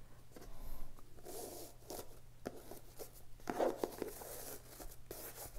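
Ribbon being untied and pulled loose from a cardboard gift box: a run of short rustles and light scrapes as the box is handled, the loudest about three and a half seconds in.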